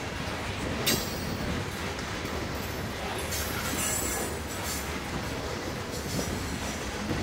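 Loaded coal train's hopper cars rolling past with a steady rumble and roar of wheels on rail. There is a sharp metallic clank about a second in, and a high wheel squeal a few seconds in.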